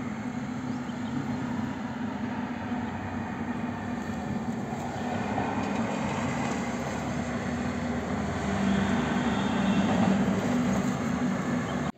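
Passenger train running, heard from inside the carriage as a steady rumble that grows a little louder about halfway through.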